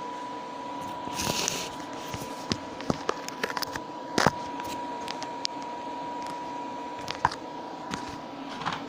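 Hands handling small metal pieces: scattered sharp clicks and light knocks, with a short rustle about a second in, over a steady background hum and a faint steady whine.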